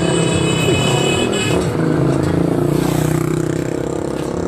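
An engine running steadily with a continuous low hum, amid general street noise.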